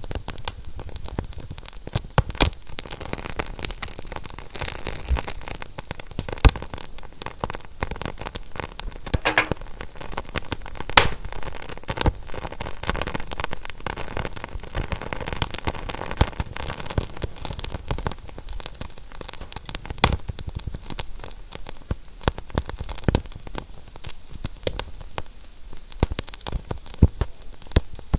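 Fire crackling, with frequent irregular sharp pops over a steady hiss.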